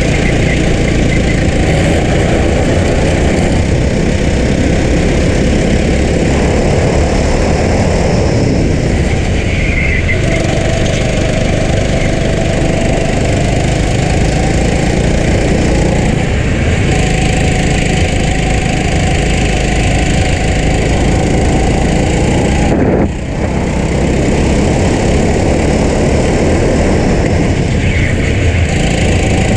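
Racing kart engine running hard, heard from a camera mounted on the kart, over heavy wind noise. The engine note climbs steadily along the straights and falls back for the corners, and once, late on, it briefly drops away.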